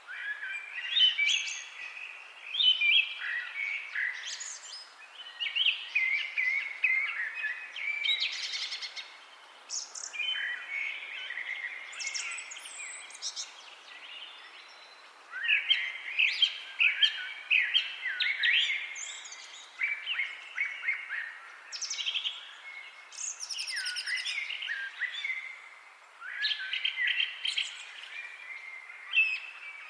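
Several songbirds chirping and singing in continuous overlapping phrases, with quick twittering notes and short trills.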